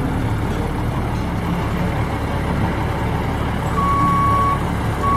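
Diesel engine of a MAN concrete mixer truck running with a steady low rumble. Near the end a reversing alarm starts beeping, one steady tone, twice.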